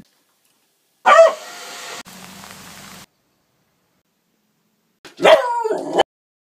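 Beagle barking: a short, loud bark about a second in, then a longer bark near the end that cuts off suddenly.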